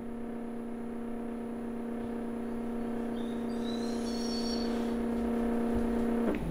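Two unmounted stepper motors, driven by a Centroid Acorn CNC controller running a test program, running at a constant step rate: a steady whine that grows slowly louder and stops abruptly just before the end.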